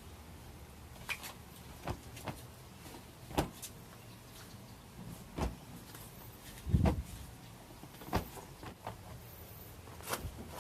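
Scattered short knocks and clicks, about a dozen, the loudest a heavier thump about seven seconds in, over a low steady rumble.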